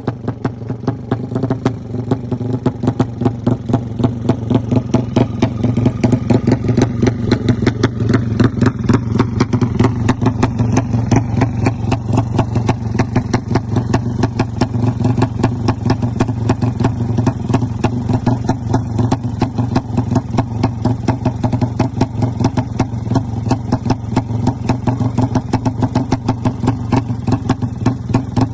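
Suzuki Satria FU drag-bike engine, bored out to 200cc, running steadily at a fast idle. Its single cylinder gives rapid, even exhaust pulses, growing a little louder over the first few seconds.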